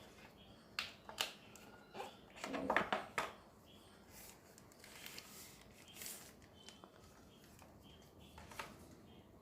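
Faint handling noises from a new phone and its box and wrapping being handled: a few light clicks and rustles, with a denser run of rustling and scraping about two and a half to three and a half seconds in.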